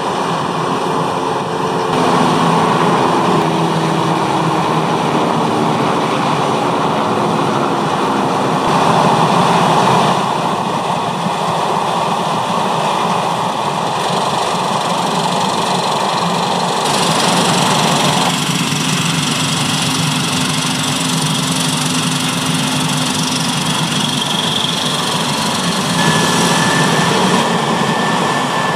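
Large diesel harvesting machinery running steadily at work in wheat: a combine harvester and a grain-cart tractor. The sound shifts abruptly several times.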